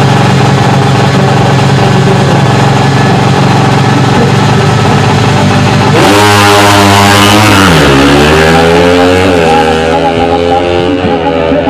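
Drag-racing motorcycle engine held at steady high revs on the start line. About six seconds in it launches: the engine note jumps and climbs, then drops and climbs again at each gear shift, about three times, and fades as the bike pulls away down the strip.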